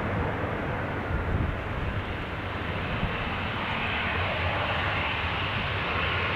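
Airbus A319 airliner's twin jet engines running as it rolls along the runway after landing. A steady jet rumble, with a higher hiss growing stronger over the second half as the aircraft comes closer.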